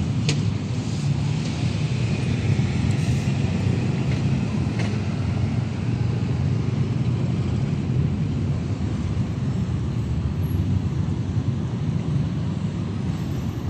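Road traffic at a level crossing: cars driving over the railway tracks, a steady low rumble.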